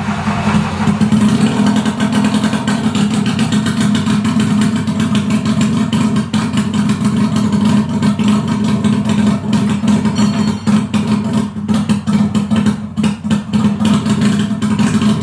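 A Subaru Sambar's 360cc two-stroke engine running steadily at idle, with a dense, slightly uneven firing rattle. This is the engine's first running in half a year, just after it caught.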